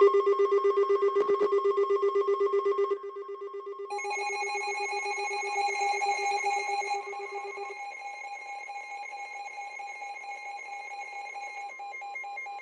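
Emergency alert attention tones: a rapidly pulsing, ringing tone for about three seconds, then a chord of steady electronic tones that grows quieter about eight seconds in, with one steady high tone under all of it.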